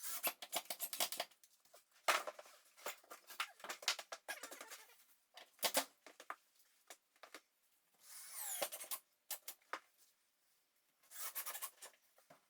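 Hand-tool work: several short bursts of scraping and rubbing with small knocks and clicks, including a squeaky scrape about eight seconds in.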